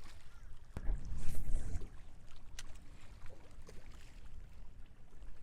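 Water washing against jetty rocks, with a louder surge about a second in, and a few sharp clicks.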